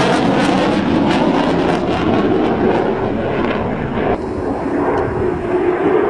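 Fighter jet engines roaring in a fly-past, a dense, crackling roar. About four seconds in the sound changes abruptly to a slightly quieter jet roar with a rising steady whine.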